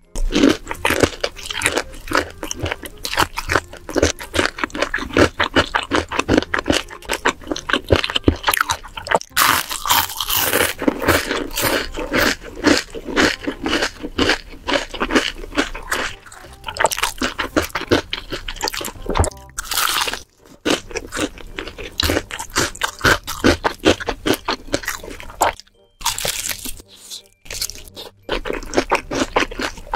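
Close-miked crunching and chewing of crispy fried chicken batter, a dense run of crackles that stops briefly a few times, including about two-thirds of the way through.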